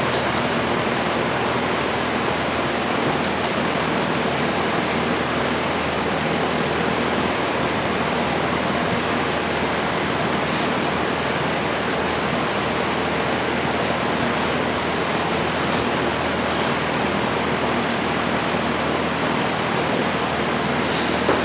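Loud, steady hiss of a compressed-air tool at work on car door bodywork, even throughout, with a faint low hum underneath.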